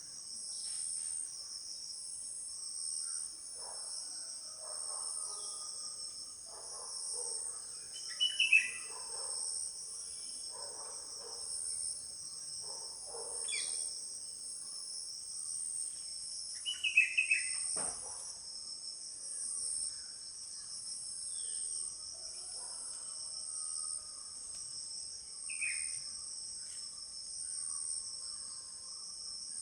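Steady, shrill insect chorus (crickets or cicadas) pulsing about once a second, with short falling bird calls breaking in three times, the loudest sounds, and softer chattering calls in the first half.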